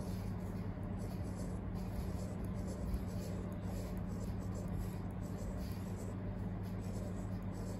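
S Pen stylus tip scratching and tapping across a Samsung Galaxy Tab S9 FE's glass screen as words are handwritten, in a run of short strokes, over a steady low hum.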